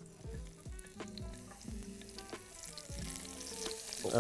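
A crunchwrap frying in a pan, the sizzle building louder from about halfway through. Background music with a steady beat plays underneath.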